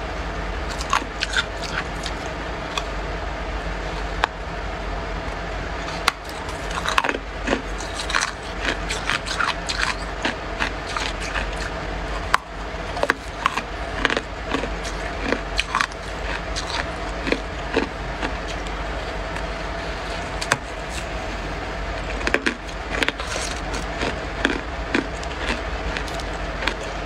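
Chunks of freezer frost being bitten and chewed: many short, crisp crunches in irregular runs, over a steady low hum.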